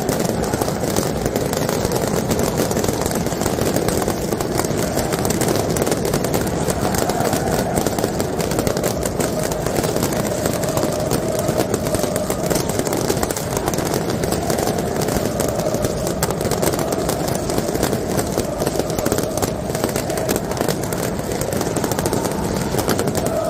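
Massed fireworks and firecrackers going off in a dense, continuous crackle of countless short cracks, over the steady roar and chanting of a packed football stadium crowd.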